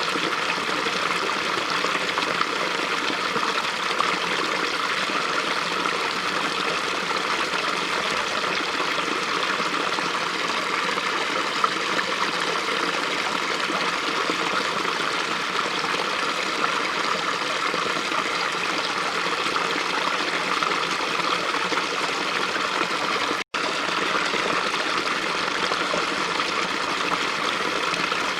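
Small stream's water running steadily, an even rush of flowing water; the sound drops out for a split second late on.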